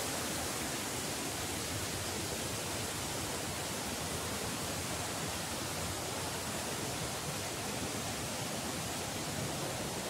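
Steady, even rush of a river and waterfalls, with no change throughout.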